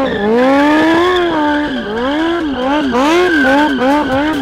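Sportbike engine revving hard in a burnout, its pitch swooping up and down over and over, about twice a second in the second half, with the rear tyre spinning and squealing on the tarmac.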